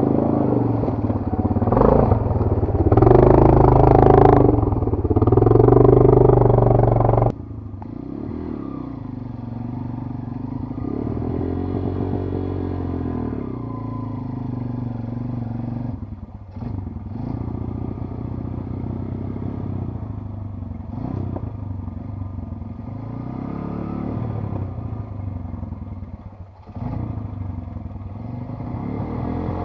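Enduro motorcycle engine running. It is loud and revving for the first few seconds, then cuts abruptly to a quieter, steadier run with slow rises and falls in pitch.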